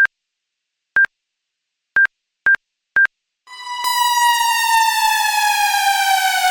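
Five short, high electronic beeps at one pitch, the first three a second apart and the last three half a second apart, then a loud, buzzy synthesized tone that comes in about three and a half seconds in and slowly falls in pitch.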